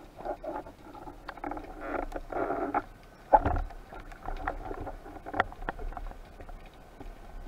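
Muffled underwater handling noise picked up through a camera housing on a speargun: water rushing and scraping, scattered sharp clicks, and one loud knock with a low thud a little over three seconds in.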